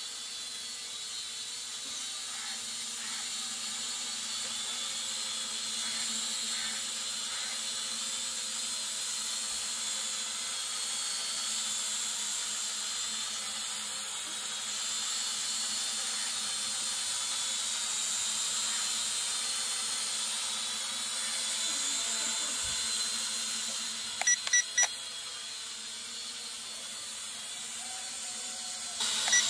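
Small foldable toy quadcopter drone hovering low, its propellers giving a steady high whine. Near the end, three short electronic beeps.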